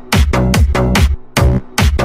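Electronic dance music with a thumping kick drum about four beats a second and a pitched bass line, dropping out briefly about a second in.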